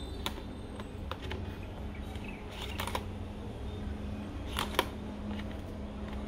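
Cardboard and plastic phone-box packaging being handled: a scattering of small clicks and scrapes as the insert is worked loose, in two denser clusters, with the sharpest click about three-quarters of the way through.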